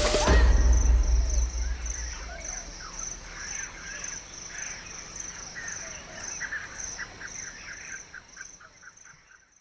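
Wild birds calling in short chirps, in a run that repeats faster near the end, over an insect's steady, evenly pulsing high trill; it all fades out at the end. A loud low rumble at the very start dies away within about a second and a half.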